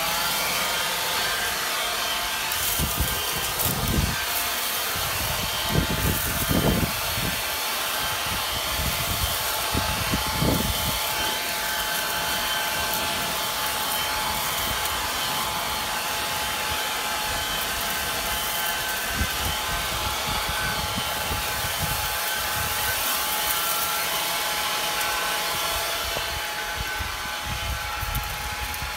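Leaf blower running steadily at full power, a rushing whine blowing dry leaves, with a few short low rumbling gusts in the first ten seconds.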